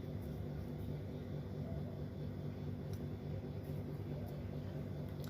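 Steady low electrical hum with an even hiss, with a faint click about three seconds in.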